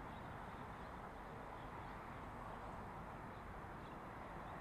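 Steady background hum of road traffic, even in level throughout, with a few faint high chirps.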